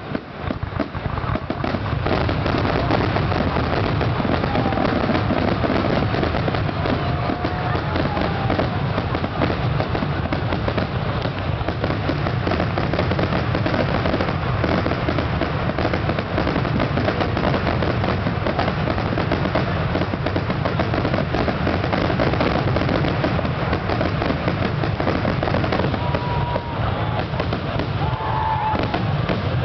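Fireworks display in a rapid, unbroken barrage of shell bursts and crackling, building up about a second in and then holding steady and loud.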